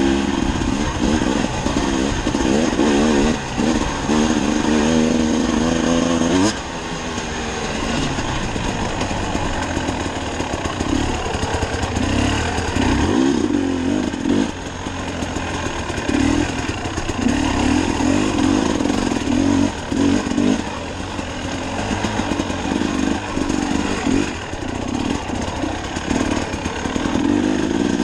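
Enduro dirt bike engine running under way on a dirt trail, its revs rising and falling with the throttle. The revs drop sharply about six and a half seconds in.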